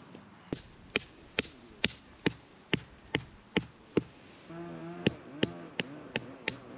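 Tent pegs being hammered into the ground with a mallet: sharp, evenly spaced strikes at a little over two a second, with a short pause a little past halfway. A low wavering hum sounds during that pause.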